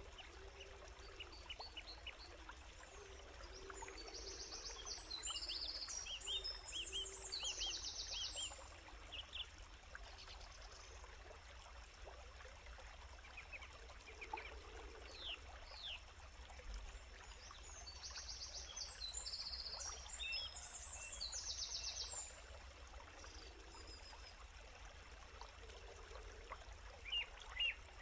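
Forest birdsong: a complex song phrase of quick chirps and buzzy notes comes twice, about fourteen seconds apart, with scattered single chirps between and a few more near the end. Under it runs a faint steady stream noise.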